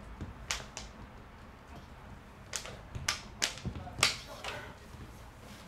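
Sharp, irregularly spaced cracks close to the microphone, from a spectator's hands and a clear plastic cup being moved about, the loudest about four seconds in.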